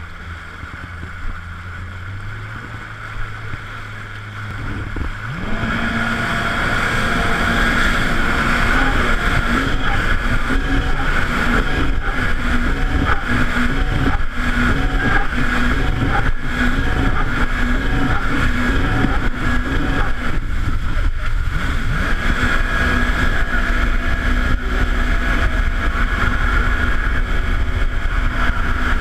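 A motorboat engine idling low, then about five seconds in throttling up quickly and running at speed with a wavering pitch and a steady rush of noise over it.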